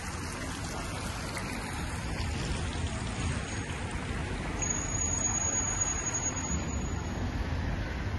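Steady splashing and trickling of water from a stone tiered fountain, a continuous hiss mixed with street ambience. A thin high whistle-like tone sounds for about three seconds midway.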